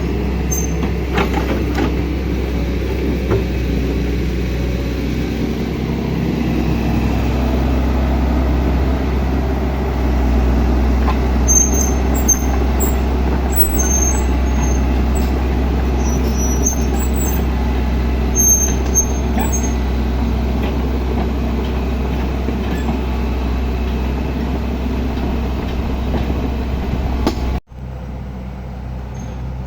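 Heavy diesel engine of road-work machinery running steadily at a low rumble. Near the end it drops off abruptly to a quieter level.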